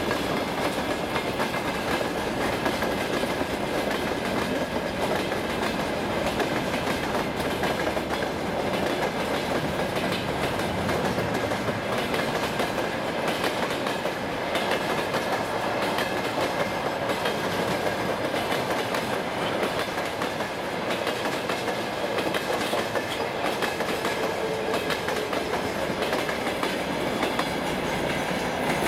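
A long freight train of open gondola wagons and timber flatcars rolling past at speed: a steady rumble and clatter of steel wheels on the rails, with the clickety-clack of wheels crossing rail joints.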